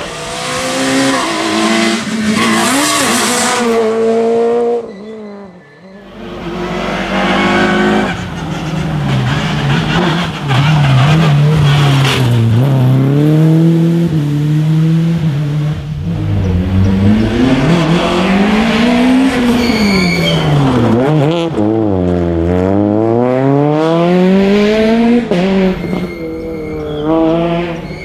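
Rally cars coming through a tarmac stage at speed, engines revving hard and rising and falling in pitch through gear changes and braking, with brief tyre squeal.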